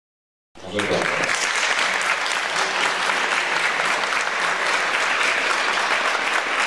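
Audience applauding, starting abruptly about half a second in and continuing steadily.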